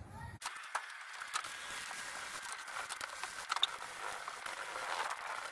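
Wet sandpaper on a block rubbed by hand over fresh paint and clear coat on a steel truck roof: a steady scratchy hiss with small scattered clicks. A low hum cuts off about half a second in.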